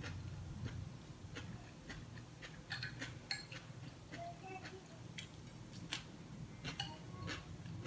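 Wooden chopsticks clicking and scraping on a ceramic plate while picking up coleslaw, with soft crunching as the cabbage slaw is chewed. The clicks are light and irregular.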